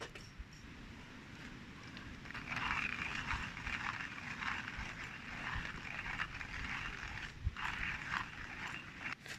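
Porlex Mini 2 hand coffee mill, its ceramic burrs crunching coffee beans as the handle is cranked, starting about two seconds in with a brief pause near the end.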